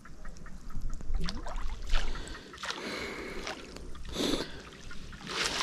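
Water sloshing and splashing in irregular swells, with small knocks and dripping, as a cast net is handled by someone wading in the water.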